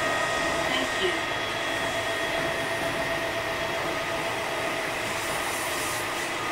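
Kintetsu 8000 series electric train running along the line, heard from inside the car: a steady rumble of wheels and running gear with a few steady whining tones over it.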